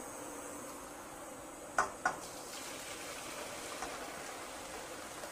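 Part-boiled rice and its hot cooking water poured from a stainless steel pot into a metal colander to strain it: a steady pouring splash, with two sharp metal clanks close together about two seconds in.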